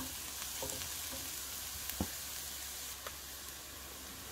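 Diced eggplant, carrot and onion sizzling in a frying pan as they are stirred with a silicone spatula, with a few light knocks of the spatula against the pan.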